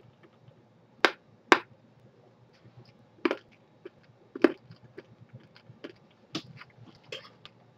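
Teeth biting down on a hard Everlasting Gobstopper jawbreaker: a series of sharp cracks and clicks, the loudest two about half a second apart a second in, then more roughly every second, with faint ticks between.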